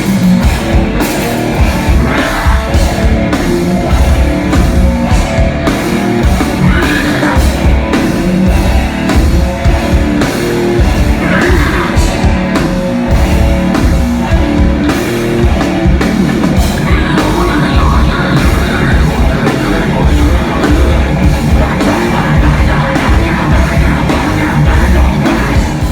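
Live heavy metal band playing loud: distorted guitars and busy drumming, with some singing.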